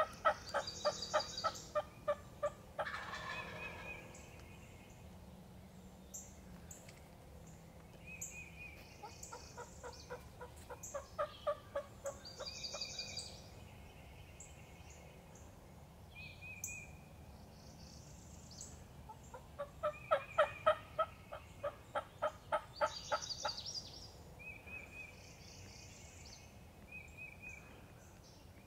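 Wild turkey calling: three runs of rapid, evenly spaced notes, each a few seconds long, near the start, in the middle and about two-thirds of the way through. Small songbirds chirp in between.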